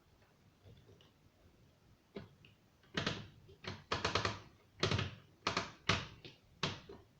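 A quick series of about nine sharp knocks and clatters, starting about two seconds in, with the last near the end.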